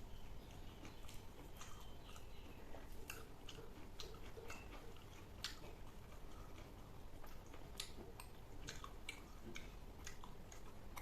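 Faint close-up mouth sounds of a person chewing food: soft, irregular clicks with no steady rhythm.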